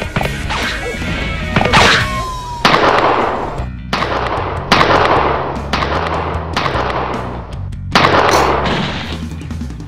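Pistol gunshot sound effects: a series of about five sharp shots, roughly a second or more apart, each with a long fading echo, over background music.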